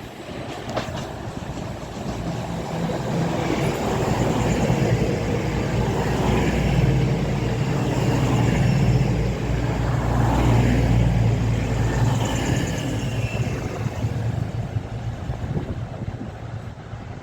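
Class 222 Meridian diesel multiple unit running past along the platform, its underfloor diesel engines growing louder, peaking in the middle, then fading away.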